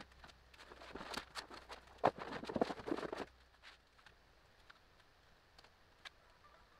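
A thin FRP (fiberglass-reinforced plastic) wall panel being shifted and flexed across a plywood work table: about two seconds of scraping and rustling with a few sharp clicks, then only faint scattered ticks.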